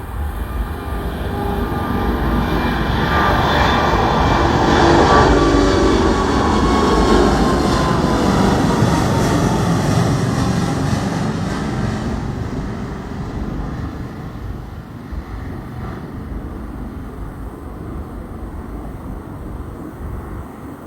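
British Airways Airbus A380's four Rolls-Royce Trent 900 engines at takeoff power, passing by. The jet noise swells to a peak about five seconds in, with a whining tone that falls in pitch, then fades away over the following seconds.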